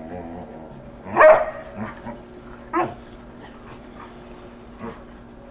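Dogs barking during rough play: a loud bark about a second in, another shorter one near three seconds, and a fainter one near the end.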